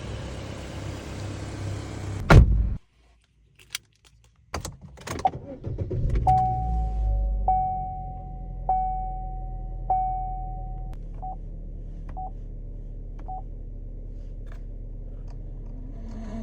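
2017 Chevrolet Sonic: a steady rushing noise ends in a loud door-shut thud about two seconds in, then a quiet pause with a few clicks. Around six seconds in the engine starts and settles to a steady low idle, while a dashboard chime sounds four times about a second apart, followed by three shorter beeps.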